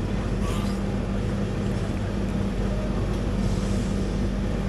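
Steady low mechanical drone with a constant hum, like an engine or motor running close by.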